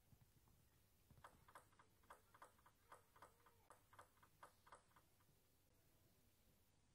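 Celluloid-type table tennis ball bounced repeatedly on the table by the server before serving: a faint run of about a dozen light clicks, roughly three a second, stopping about five seconds in.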